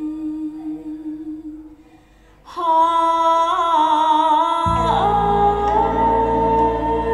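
Music played through a Naim Mu-so wireless speaker: sustained tones fade almost to silence, then about two and a half seconds in a singing voice enters on a long, wavering note, and about two seconds later bass and fuller accompaniment come in.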